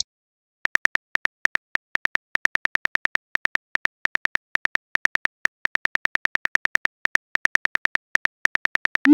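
Keyboard tap sound effects of a texting app as a message is typed: short identical clicks, about five a second in uneven runs. Right at the end a short rising whoosh as the message is sent.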